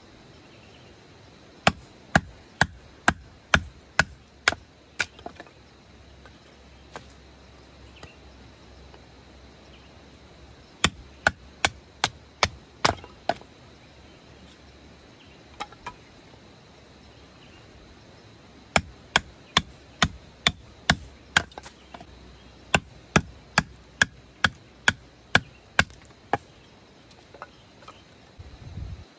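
Knife being driven down through a short upright log to split off thin boards: runs of sharp wooden knocks, about two a second, with pauses between the runs.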